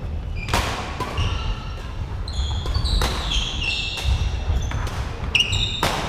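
Badminton rally: rackets sharply hitting the shuttlecock, about four hits, each with a short ring in the hall. Between the hits, around the middle, trainers squeak on the wooden court floor in short high chirps.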